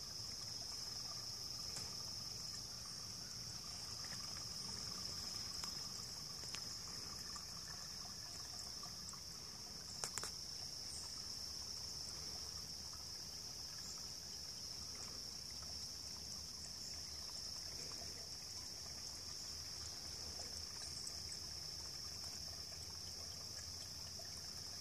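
Spring water trickling thinly over rocks, under a steady high-pitched drone of insects. A brief sharp click about ten seconds in.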